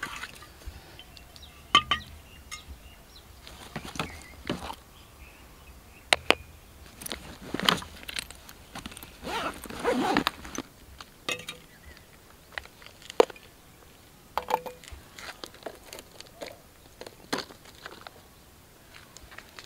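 Rummaging in a fabric backpack and setting things down on stone: rustling, with scattered sharp knocks and clinks as a drinks can, a glass and a plastic box are put down.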